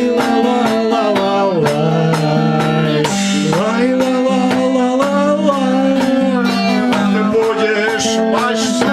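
Acoustic guitar strummed in steady chords under a voice singing a sliding, wavering melody.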